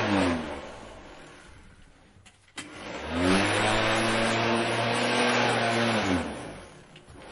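Lawn mower engine running, then falling in pitch and dying away almost to nothing. A click comes about two and a half seconds in, and the engine climbs quickly back up to speed and runs steadily. Near the end it winds down again the same way, with another click as it picks back up.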